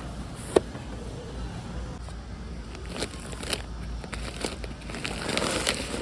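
Grocery items and their packaging being handled: a sharp click about half a second in, a few lighter knocks, and plastic crinkling near the end.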